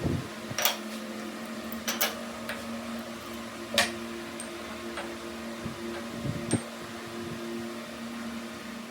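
An electric motor of a workshop machine running at a steady hum, with a few short sharp metallic clicks or taps scattered through it.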